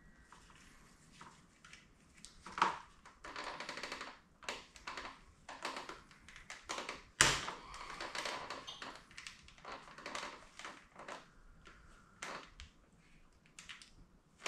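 Hands working on parts in a motorcycle's engine bay: scattered clicks, taps and rustling, with a sharp knock a couple of seconds in and a louder one about seven seconds in.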